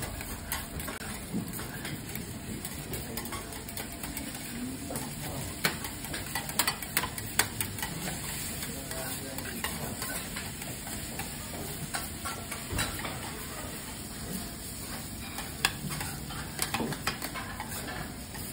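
Garlic rice sizzling in oil on a teppanyaki steel griddle while two metal spatulas scrape and chop through it, with sharp clacks of spatula on the plate, several close together about six to seven seconds in.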